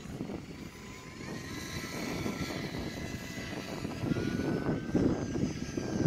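Timber UMX ultra-micro RC plane's electric motor and propeller whining thinly in flight, the whine rising in pitch and growing louder toward the end as the plane comes closer. Strong wind buffets the microphone with a gusty rumble underneath.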